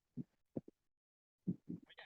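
A sleeping man snoring in short, irregular low sputters: a few brief bursts in the first second, then a quick cluster near the end.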